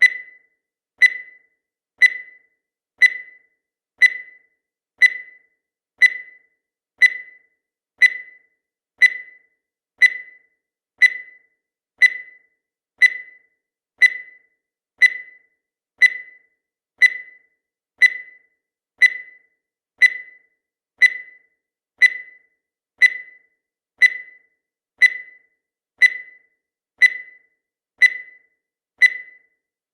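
Countdown timer's sound effect: a short, high electronic beep once every second, each one sharp at the start and fading quickly.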